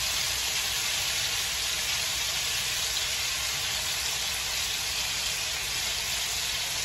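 Lamb chops searing in a little oil in a hot skillet: a steady sizzle.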